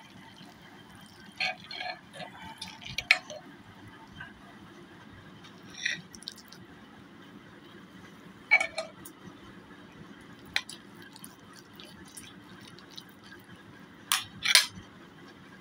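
Metal ladle clinking and scraping against a pressure cooker pot and a plate as cooked khichdi is dished up: scattered single clinks, with two close together near the end, over a steady low hum.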